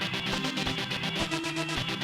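Electronic music produced in a digital audio workstation: a fast, even pulse with short pitched notes repeating underneath.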